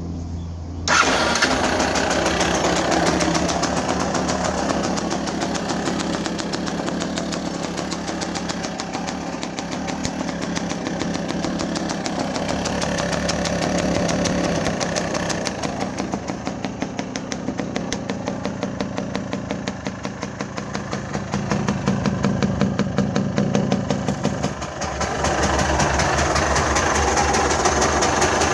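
An engine catching about a second in and then running, its level swelling and easing a few times.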